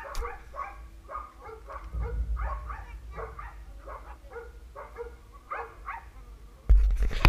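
A dog barking repeatedly, about three short barks a second. Near the end a sudden loud low bump and rumble covers it.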